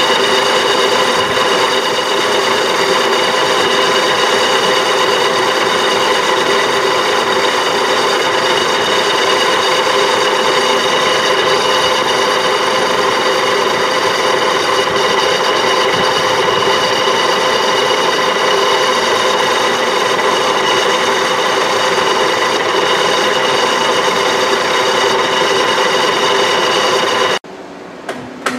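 Metal lathe facing a cast aluminum blank: steady machining noise with a constant high-pitched whine as the tool cuts across the spinning face. It cuts off suddenly about a second before the end, giving way to quieter lathe running.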